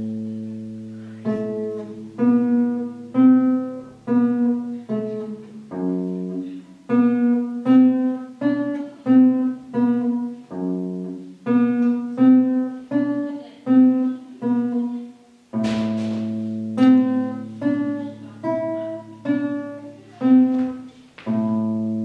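Nylon-string classical guitar played solo: a melody of single plucked notes, roughly two a second, over low bass notes left ringing. About two-thirds of the way through it pauses briefly, then comes back in with a fuller chord.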